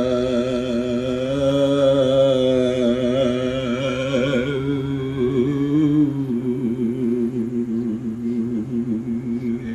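A man's deep voice chanting in long, wavering held notes, calling on the ancestors. About six seconds in the tone steps lower and grows weaker.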